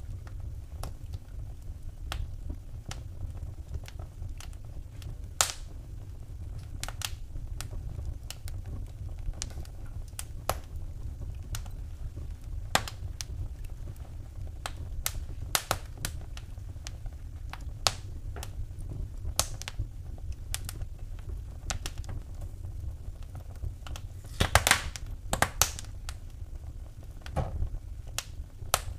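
Wood fire burning in a fireplace, crackling with irregular sharp pops and snaps over a steady low rumble of the flames, with a quick cluster of pops near the end.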